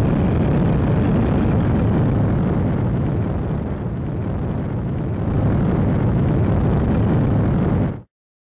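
Rocket motor burn sound effect: a steady low rumble of thrust that cuts off abruptly about eight seconds in.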